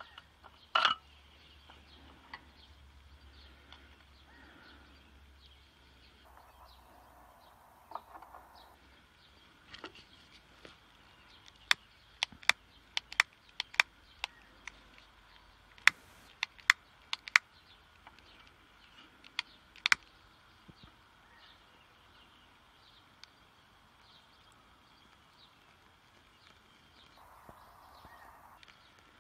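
Outdoor background with birds calling. Through the middle comes a run of sharp clicks and taps from small hard objects being handled on a wooden bench.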